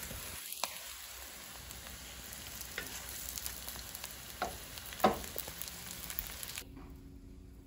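Quesabirrias sizzling as they fry in a nonstick pan, with a spatula knocking against the pan a few times, the loudest knock about five seconds in. The sizzle cuts off abruptly near the end.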